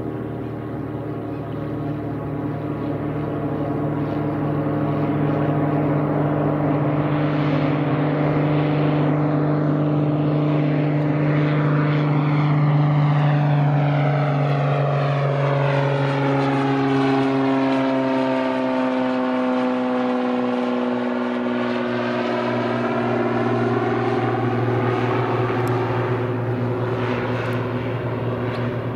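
Cessna 172 floatplane flying low past with its propeller engine droning steadily. The sound grows louder toward the middle and drops in pitch as the plane goes by, then carries on as it climbs away.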